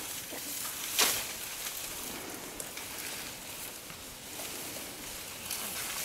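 Giant panda crunching and snapping bamboo as it eats, with one loud crack about a second in and scattered smaller snaps and rustles of the stalks and leaves.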